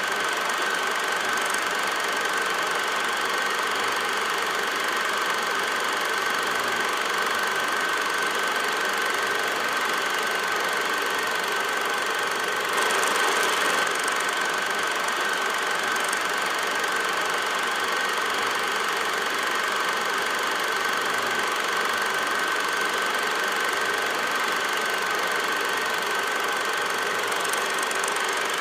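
Steady mechanical whir with a constant high-pitched whine, briefly a little louder about halfway through: a film projector running, with no game sound.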